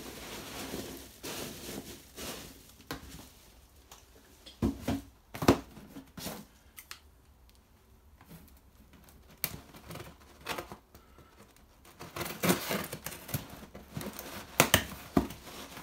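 Cardboard boxes and foam packing peanuts being handled, with scattered sharp knocks, the loudest about halfway through. In the last few seconds, scissors slice and scrape through the packing tape on a small cardboard box.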